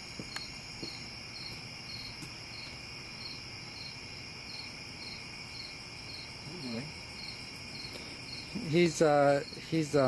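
Crickets chirping: a steady high trill with regular chirps a little over two a second. A voice speaks briefly near the end.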